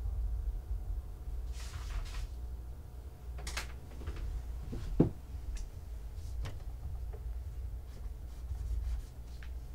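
Steady low room hum with scattered small clicks and knocks of things handled on a desk; the loudest, a sharp knock, comes about five seconds in.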